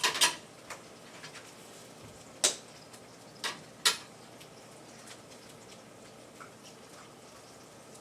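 Sharp clinks and taps of kitchenware: a couple right at the start, one about two and a half seconds in and two close together near four seconds, then only faint ticks.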